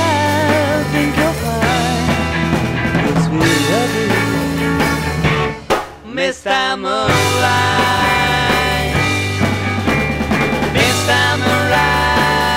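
Rock band of two electric guitars, bass and drums playing an instrumental passage, with wavering lead lines over a steady bass and beat. About six seconds in the band drops out for a moment, then comes back in full.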